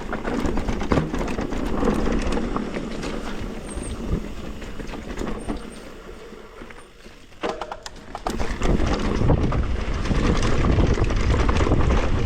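Mountain bike rolling down a dirt trail: tyre noise on the ground with the bike rattling and clicking over bumps. About eight seconds in, wind buffeting on the microphone gets loud and stays loud as the bike picks up speed.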